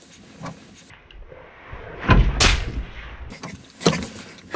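Car seat belt being tugged to test it, the webbing catching in its locked retractor with a few sharp thuds. The loudest, deepest thud comes about two seconds in, and smaller knocks follow near the end.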